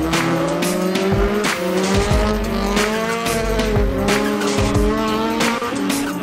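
Honda Civic Type-R R3C rally car's four-cylinder engine revving up and down hard through a slide, with tyres squealing on the wet tarmac.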